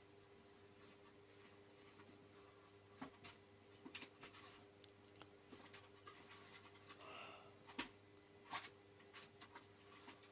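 Near silence over a steady low hum, broken by a few faint scattered clicks and rustles of a kitten shifting about inside a clear plastic tray.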